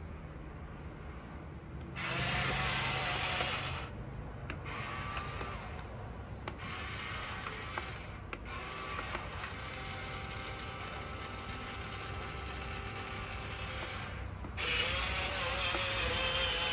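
Top Race TR-212 remote-control dump truck's small electric motors and gears whining and grinding as it runs, louder about two seconds in and again near the end.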